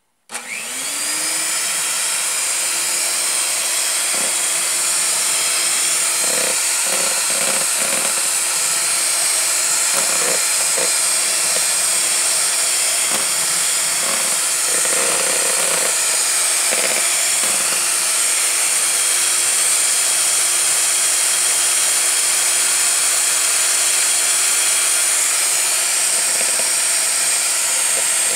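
Handheld electric mixer switched on, spinning up within the first second, then running steadily with a high whine as its beaters whip egg whites and cream together in a bowl. Occasional short knocks sound through the middle stretch.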